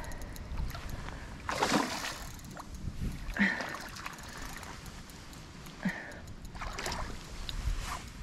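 Water splashing in a few separate bursts as a rainbow trout is worked into a landing net at the water's edge, over a steady low rumble.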